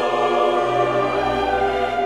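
Background music: a choir and orchestra holding long, sustained notes.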